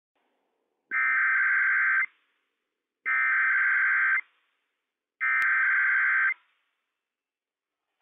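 Three bursts of EAS SAME header data from a NOAA Weather Radio broadcast, the coded digital warble that opens an emergency alert message, here a Required Weekly Test. Each burst lasts about a second, with about a second of silence between them, and a faint click falls in the third burst.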